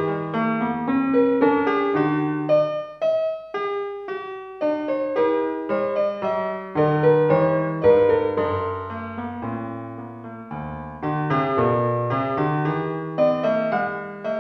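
Piano music: a melody of quick notes over changing bass notes, with a short pause about three seconds in.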